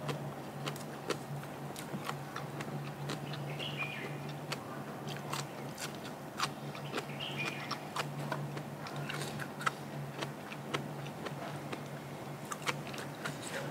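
A person chewing and biting food close to the microphone, with many sharp, irregular crunchy clicks, over a steady low hum.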